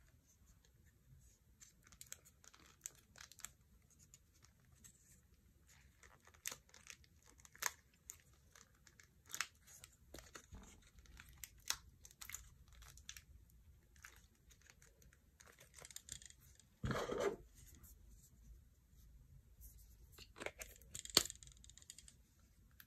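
Small plastic and metal parts of a BlackBerry Q10 being handled and pried apart by hand: scattered light clicks and scrapes. A louder short scrape or tearing sound comes a little past the middle, and a sharp click near the end.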